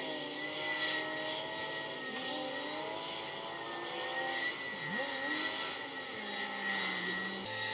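Heavy diesel machinery working: a Kawasaki 90ZV wheel loader and a grab-bucket crane, the engine note rising and falling as they work, with a steady high whine above it.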